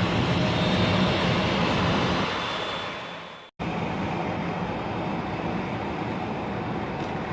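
Jet airliner engine noise, a loud rush with a faint whine, fading away over the first few seconds. It cuts off abruptly and gives way to a steady, quieter background rumble.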